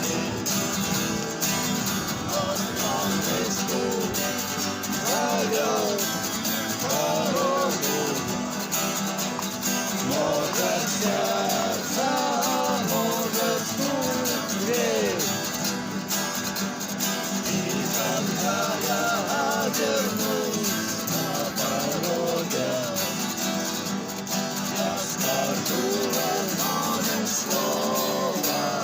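Music: a strummed acoustic guitar with a sung melody over it.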